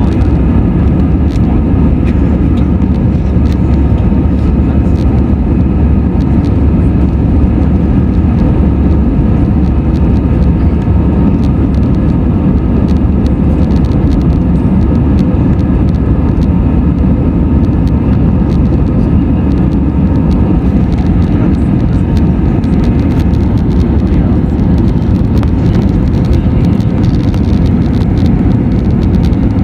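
Steady cabin noise of an Airbus A320-214 climbing out: its CFM56-5B engines running and air rushing past the fuselage, heard from inside as a loud, even, deep rumble with a faint steady hum above it.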